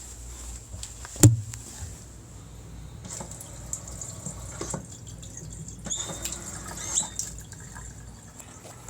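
Splendide 2000 washer-dryer combo: one loud thump about a second in, then scattered small clicks and short high squeaks over a low steady hum.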